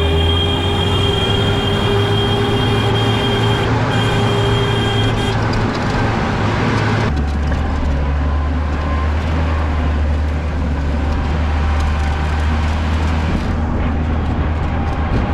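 Train on the railway line, loud and steady: a high, steady tone sounds for about the first five seconds, then a deep, steady rumble carries on.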